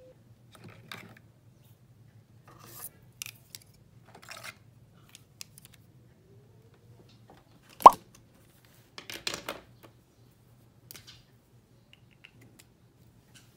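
Objects being handled and set down on a desk, a plastic cup and pens among them: scattered light rubs and taps, one sharp knock a little past halfway, then a short patch of rustling.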